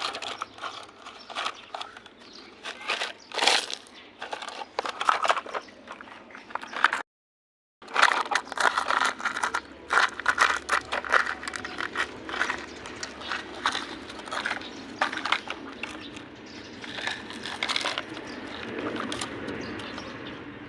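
Dense, irregular clatter of small objects being handled: many quick clicks and knocks mixed with crinkling and scraping. The sound cuts out completely for about a second, about seven seconds in.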